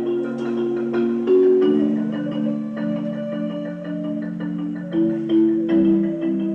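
Instrumental music: pitched, mallet-like notes held and layered, moving to new notes every second or so.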